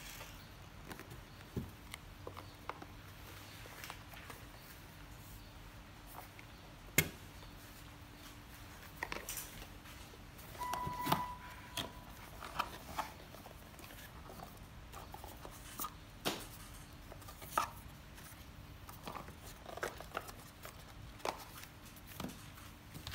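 Handling noise from unboxing a GoPro Hero 7 Silver: scattered clicks, taps and rubbing as the cardboard box and the camera's plastic holder are slid apart and opened. There is a sharp knock about seven seconds in and a short squeaking tone around eleven seconds in.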